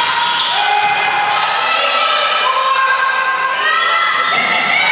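Gym sounds from a volleyball match: many overlapping squeaks and held tones over crowd voices.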